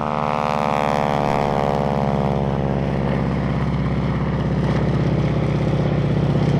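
North American Harvard trainer's Pratt & Whitney R-1340 Wasp radial engine running at full takeoff power as the plane lifts off and climbs away. Its pitch falls over the first few seconds as it passes, then holds steady.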